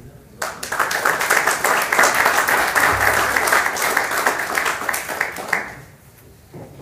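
Audience applauding, starting about half a second in and dying away after about five seconds.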